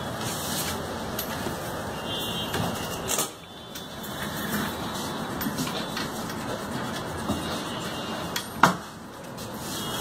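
Steady background hiss and rumble, with faint scratches of a ballpoint pen writing on a paper cheque and one sharp click near the end.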